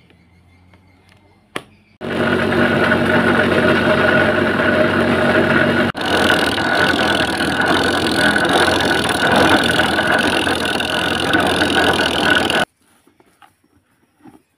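Electric coconut grater running, its motor-driven serrated head shredding coconut flesh pressed against it: a loud steady machine whine over grinding. It starts suddenly about two seconds in, breaks off for an instant midway, and stops abruptly a couple of seconds before the end.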